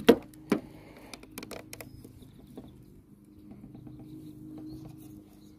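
Plastic knocks and clicks as a third brake light housing is handled against the car's roof spoiler: two sharp knocks near the start, then scattered light clicks. A steady low hum runs underneath and grows a little stronger after the middle.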